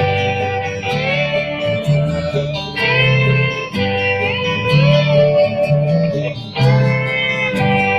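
Guitar music with notes that slide up in pitch, over a steady bass line, playing through a Knox Gear Hyperion vacuum tube hybrid Bluetooth speaker.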